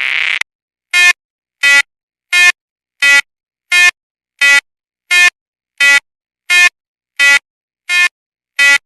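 Level-crossing warning bell ringing in short, evenly spaced dings, about three every two seconds. Before it, a rising tone cuts off about half a second in.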